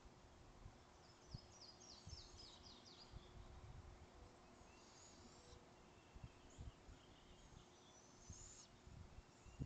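Near silence in woodland, with faint distant songbirds: a run of about eight quick high notes a second or so in, and shorter high bursts around the middle and near the end. Soft low rumbles run underneath, with a low thump near the end.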